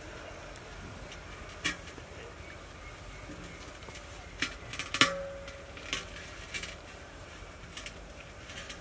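Large soot-blackened metal cooking pot knocking and clanking as it is carried and set down, with a sharp knock about five seconds in that rings briefly and several lighter knocks around it.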